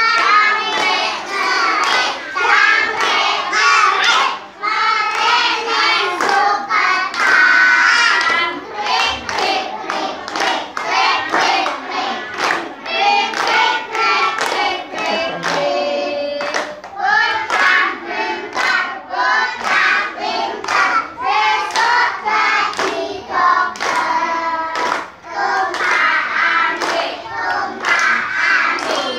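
A group of young kindergarten children singing a children's song together, clapping their hands in time with the song.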